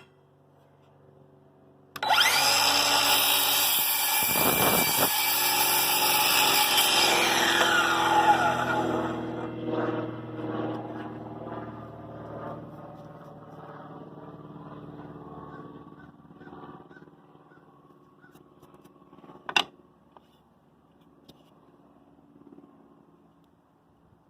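Craftsman 20V cordless miter saw starting abruptly about two seconds in and running loudly for several seconds while making a cut. The blade then winds down slowly after the trigger is released, its whine falling in pitch and fading. A single sharp click comes near the end.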